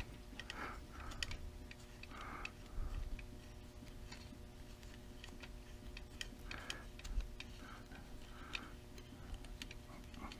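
Faint, scattered clicks and taps of small hardware being handled as a nut and screw are fitted into a camera and mic mount. A low, steady hum runs beneath.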